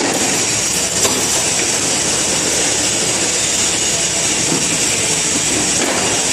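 Automatic wire hanger making machine with welding function running: a steady mechanical noise with a high hiss, and a single sharp knock about a second in.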